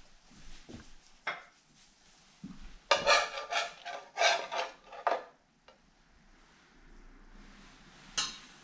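Dishes and utensils clattering and scraping: a dense run of clinks and scrapes lasting about two seconds midway, a few lighter knocks before it, and one sharp clink near the end.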